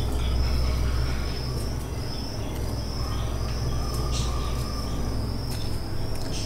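Hand-held vegetable peeler scraping the skin off a potato in a few short strokes, over a low steady hum. A cricket chirps in the background, a high pulsing note about twice a second.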